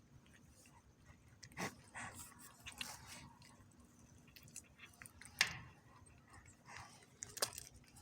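A cat chewing and crunching a snack: scattered short, faint crunches.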